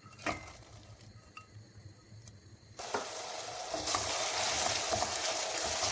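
Food frying in hot oil in a pot and being stirred: quiet at first with a single knock, then sizzling starts abruptly nearly three seconds in and goes on loud and steady, with scattered clicks of the spoon against the pot.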